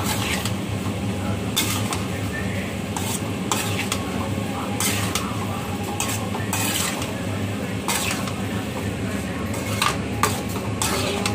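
A metal spoon stirring and scraping fusilli pasta around a metal kadai, in irregular strokes, over a steady low hum.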